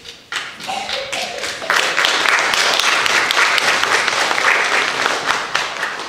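A congregation applauding: many hands clapping, building up over the first couple of seconds and tapering off near the end.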